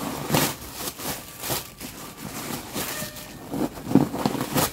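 Paper stuffing crinkling and rustling in irregular bursts as it is handled and pulled out of a new backpack.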